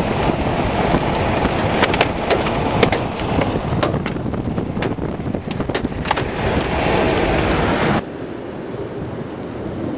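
Strong wind buffeting the camera microphone, a loud rushing noise with scattered sharp clicks and pops. About eight seconds in it cuts abruptly to a quieter, steadier wind rush.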